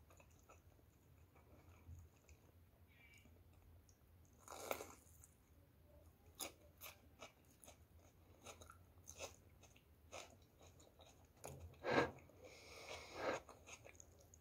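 Quiet, close-up chewing and crunching of batter-fried vegetable and crab-stick fritters, with scattered soft mouth clicks and smacks. A louder crunch comes about twelve seconds in.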